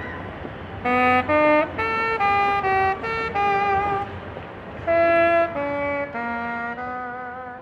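A melody played on a single wind instrument, over steady background noise. It plays a phrase of short notes, pauses about four seconds in, then plays a slower phrase of longer notes stepping downward.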